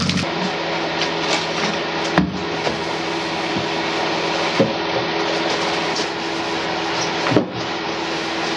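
A small motor running steadily with a hissing whirr, broken by three sharp knocks spread through it.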